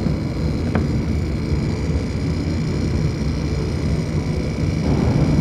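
Rebuilt Jet 700LL septic aerator's induction motor running steadily under test: a dense low hum with a thin, steady high whine over it. The owner later put its noisiness down to a wire, torn loose by the centrifugal switch, rubbing inside the case.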